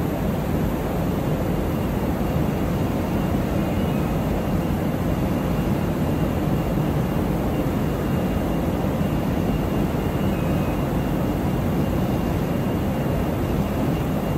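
Steady, even machine hum and hiss of an industrial sewing workshop, mostly low, with no separate knocks or stitching strokes.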